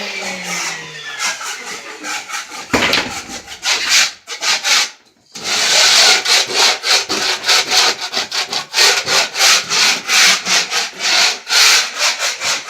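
Hand sanding a surface with coarse sandpaper: quick back-and-forth rubbing strokes, about three a second, with a short pause about four seconds in. A power tool is still spinning down in the first second.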